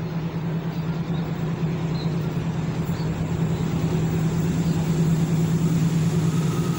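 A heavy engine running steadily: a loud, low, even hum that grows slightly louder over the last few seconds.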